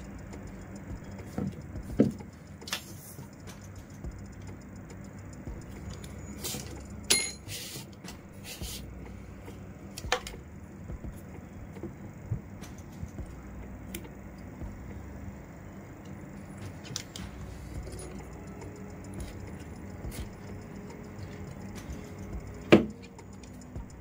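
Hand-weaving with plastic (PE) rattan: strands and tools rubbing, tapping and clicking at irregular moments, with a sharp knock near the end, over a steady low hum.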